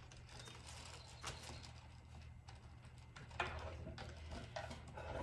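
Light, irregular taps and faint paper rustling from hands pressing glued decoupage paper down around the edge of a round wooden board, over a low steady hum.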